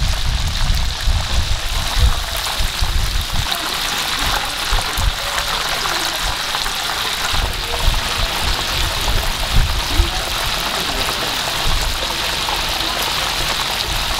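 Battered shrimp deep-frying in a wide pan of hot oil: a steady, dense sizzle.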